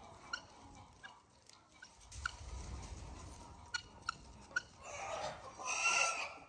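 Farmyard poultry clucking and calling: short, scattered chirps throughout, then a longer, louder call about five seconds in.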